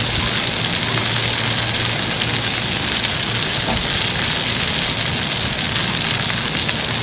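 Chicken thighs sizzling steadily in an oiled frying pan over a wood fire, a dense, even hiss of fat and juices frying.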